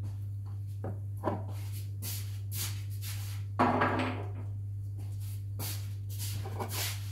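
A person moving about a kitchen: soft shuffling footsteps and small handling noises, with one louder clunk at the table about three and a half seconds in, over a steady low hum.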